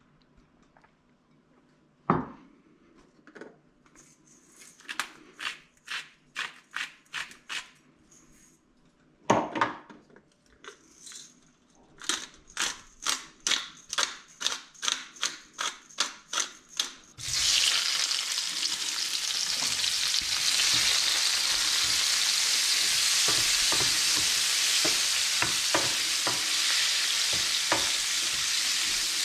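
Salt and pepper grinders twisted over a bowl of raw prawns in two runs of quick, evenly spaced grinding crunches, with a couple of knocks. A little over halfway through, the prawns go into hot olive oil in a frying pan and sizzle loudly and steadily, with light scraping of a wooden spatula stirring them.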